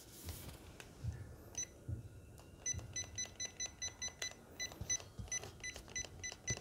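Pistol-grip 2.4 GHz RC transmitter beeping as its steering-trim button is pressed: a few single beeps, then from a bit under three seconds in a quick even run of short beeps, about four or five a second, as the button is held or pressed repeatedly. A few soft low knocks come with the handling of the transmitter.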